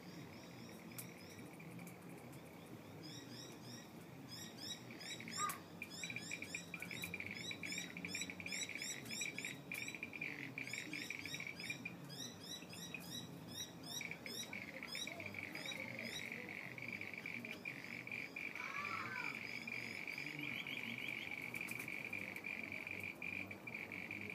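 Frogs calling in a steady high-pitched trill. Rapid, repeated high chirps are layered over it from about three seconds in until about two-thirds through. A short, louder sound comes about five seconds in.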